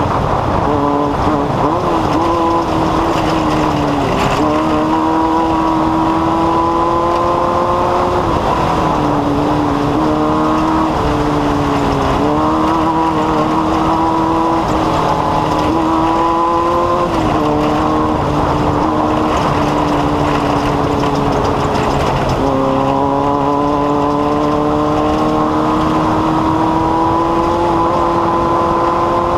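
An engine running steadily under load, its pitch climbing slowly and then dropping back quickly about five times, with a rushing noise underneath.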